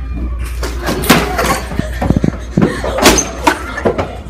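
A rapid series of bangs and thumps, loudest about one, two and three seconds in: a person crashing into and through metal double doors with push bars and landing on the floor.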